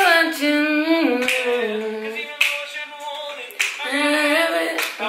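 A cappella vocal group of men singing close harmony in a country-pop medley, with sharp vocal-percussion hits every second or so.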